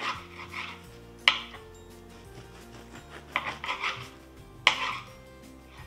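Kitchen knife sawing through a loaf of crusty French bread on a wooden cutting board in short runs of strokes, with a sharp knock about a second in and another near the end as the blade meets the board. Soft background music with steady tones plays underneath.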